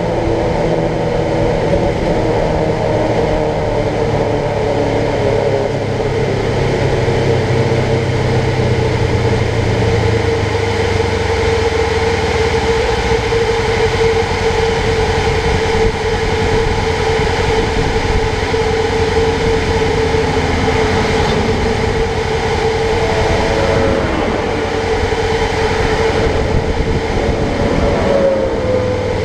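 Polaris General XP 1000 side-by-side's twin-cylinder engine winding down in the first several seconds as the machine slows, then idling with a steady whine. Near the end a dump truck passes on the road, its sound falling in pitch as it goes by.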